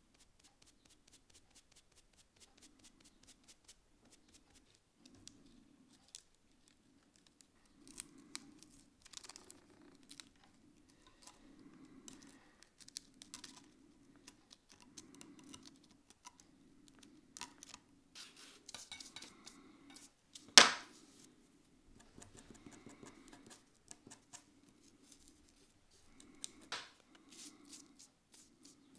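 Faint, close-up sounds of a conservator cleaning moldy paper: a scalpel blade scraping crusted mold off the paper surface in small scratches and ticks, with a smoke sponge rubbing and a soft brush sweeping the debris off the bench. One sharp click about two-thirds of the way through is the loudest sound.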